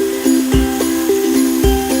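Background music: a light melody of short pitched notes over a low beat that lands about once a second.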